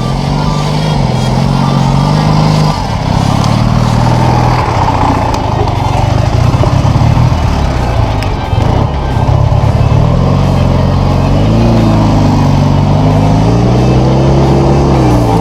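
Motorcycle engine running under load, its revs rising and falling several times, most clearly in the last few seconds.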